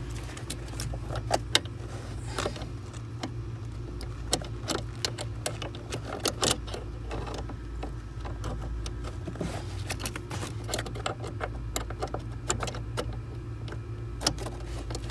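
Irregular clicks, taps and light rattles of metal and plastic parts being handled as a zip-tied, compressed clutch spring is worked into a car's clutch pedal assembly, over a steady low hum.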